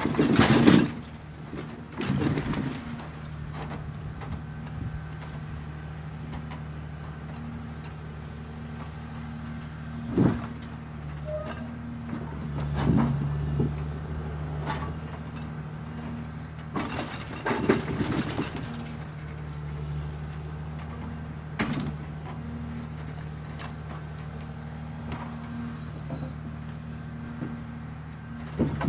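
Forwarder's diesel engine running steadily while its hydraulic crane swings and works the grapple, with a handful of sharp knocks and thuds of logs and grapple, the loudest right at the start and about 18 seconds in.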